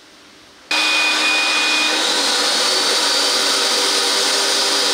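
Vacuum motor of an orange Safran industrial cleaning machine running at full power: a loud, steady rushing with a thin motor whine. It comes in abruptly about a second in.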